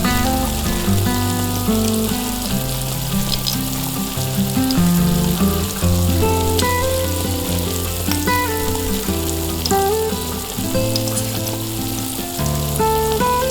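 Mini potato cakes frying in a miniature pan: a steady sizzle with small crackles and pops. Background music with a melody and a bass line plays along.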